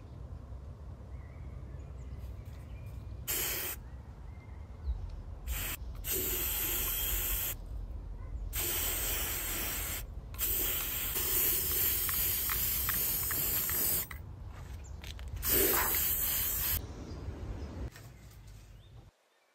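Aerosol can of Krylon Fusion All-in-One gloss white spray paint hissing in a series of sprays, about six in all, some brief and some several seconds long, as the nozzle is pressed and released.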